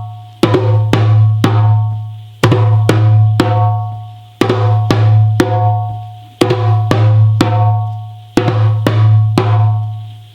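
A drum played in a steady repeating pattern: about every two seconds a deep booming stroke that rings on and slowly fades, with several lighter strokes in between.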